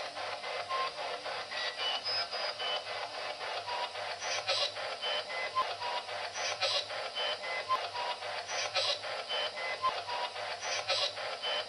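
Ghost box (spirit box) scanning through radio stations: fast-chopped static with short beeps at changing pitches and a louder burst of hiss about every two seconds. The investigators claim to hear a voice in it saying 'si yo te contara'.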